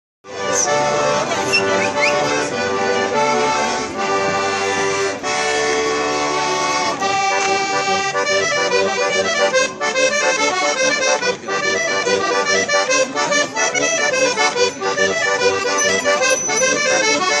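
Accordion playing a traditional tune: held chords over low bass notes, moving into a quicker melody with a rhythmic accompaniment about seven seconds in.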